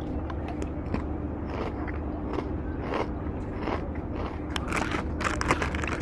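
Handling noise from a handheld camera: scattered rubbing, scraping and crackling clicks, more frequent in the second half, over a steady low rumble.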